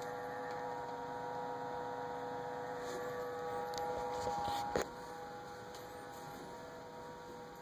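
Samsung refrigerator giving off a steady, many-toned hum, the noise the owner is recording it for. About five seconds in there is a sharp click, after which the hum changes pitch and gets a little quieter.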